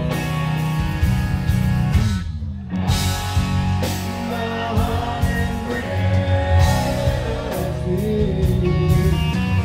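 Live rock band playing: strummed acoustic guitar, electric guitar and drums under a male lead vocal. The music thins briefly a little over two seconds in, then comes back full.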